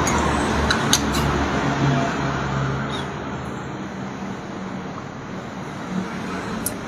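Steady low background rumble, like road traffic. A few light clicks come from a drinking glass being picked up about a second in and set back down near the end.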